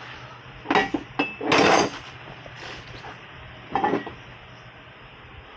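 Metal tools and car parts clanking as they are handled: two sharp clinks about a second in, one with a brief ringing tone, then a longer rattle, and another clank near the end.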